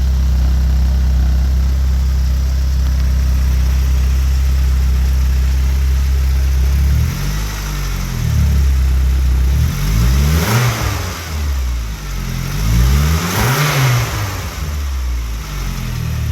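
Turbocharged Saab 9-5 engine idling steadily, then revved up and let fall back several times, two revs stronger than the rest, after about seven seconds. It is running with a new exhaust-manifold-to-turbo gasket, the large exhaust leak cured.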